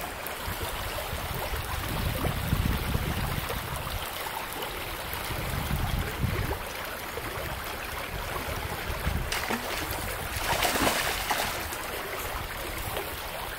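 Small creek's water rushing steadily over rocks, an even wash of noise, with low rumbles on the microphone now and then and a louder rush about ten and a half seconds in.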